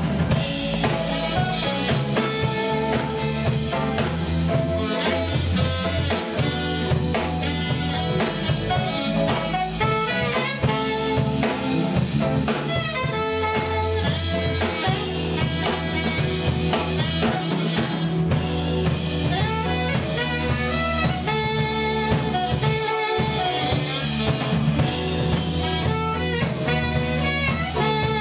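A live band playing a jazz-style number: saxophone lead over electric guitar, keyboard, bass guitar and drum kit, with a steady beat.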